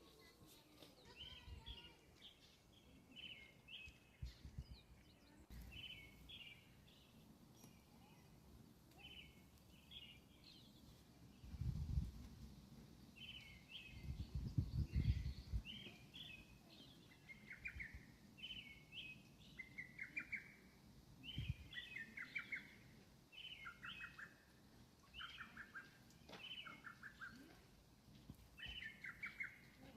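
Small birds chirping in short repeated calls throughout. Low rumbling thumps come and go around the middle.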